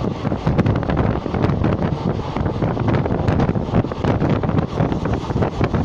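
Express train running at speed, heard from on board: heavy wind buffeting the phone's microphone over the train's steady rumble, with many short rattles and clicks.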